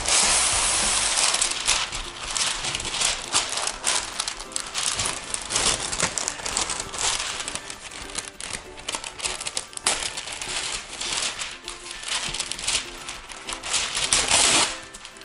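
Parchment paper crinkling and rustling as a sheet is pulled off the roll in its cardboard box and unfurled, with quiet background music.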